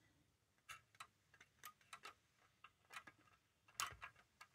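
Faint, irregular clicks and taps of small plastic model parts as a plastic sail is handled and clipped onto a model ship's mast, with a slightly louder click a little under four seconds in.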